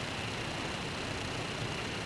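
Steady ambience of rain and road traffic: an even wash of noise with a faint steady high-pitched band, unchanging throughout.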